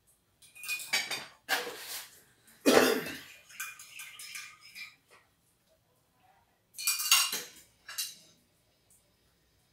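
Spoons and crockery at a breakfast table: a spoon clinking and scraping in a cup and bowl, and cups set on saucers, in several short bursts with quiet gaps, the loudest about three seconds in.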